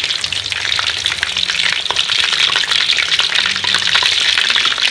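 Frog pieces deep-frying in a wok of hot oil, in their first of two fryings: a steady, dense crackle and sizzle of bubbling oil.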